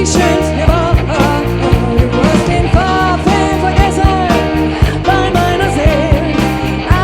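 A party band playing a song: a lead voice singing long held notes over a steady drum kit beat, bass and guitar.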